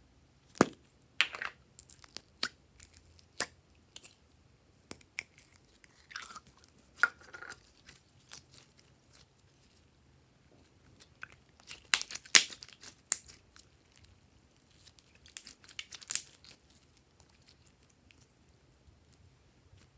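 Slime being squeezed, pulled and stretched by hand: sticky pops, clicks and crackles in scattered clusters, the loudest a little past halfway.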